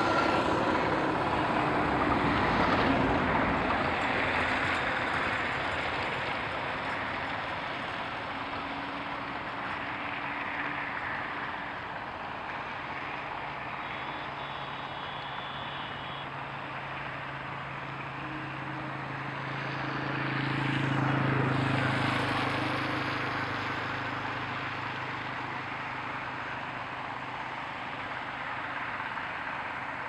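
Road traffic: a steady rumble of passing motor vehicles. It swells at the start and again about twenty seconds in, when a vehicle with a low engine hum goes by.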